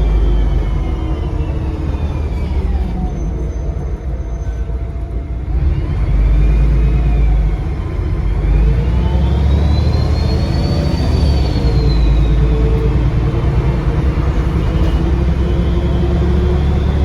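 Bus diesel engine running under load, heard on board, with a loud turbocharger whistle rising and falling in pitch as the engine pulls and eases off. The whistle fades a few seconds in, then climbs to its highest about two-thirds of the way through before dropping back and rising again near the end.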